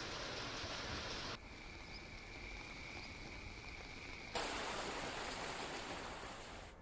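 Steady rush of fast-flowing river water that cuts off abruptly after about a second and a half, leaving a quieter background with one steady high insect trill. About four seconds in a louder rushing hiss starts suddenly and fades near the end.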